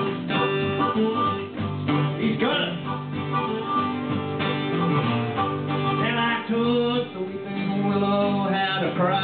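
Live acoustic country band playing an instrumental intro: two acoustic guitars strumming while a harmonica plays held and bent melody notes.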